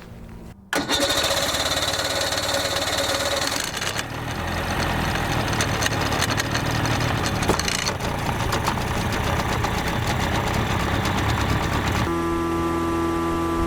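Boat's outboard motor running, cutting in abruptly about a second in. Near the end it throttles back and its pitch falls.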